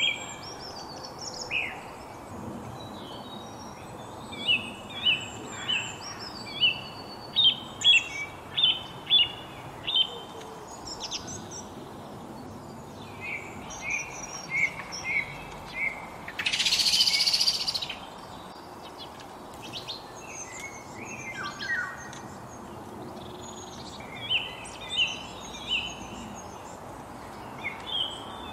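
Wild birds singing and chirping, several voices, with runs of short, evenly repeated notes and scattered higher chirps over a steady background hiss. About two thirds of the way through, a harsh noisy rasp of about a second and a half is the loudest sound.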